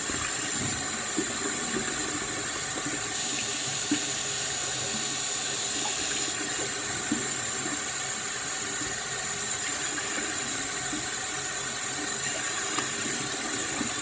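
Tap water running steadily into a sink, an even hiss that gets a little louder for a few seconds near the start.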